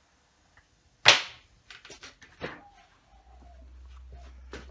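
A single sharp smack about a second in, followed by a few lighter knocks and clicks. Near the end comes a low rumble of movement close to the microphone.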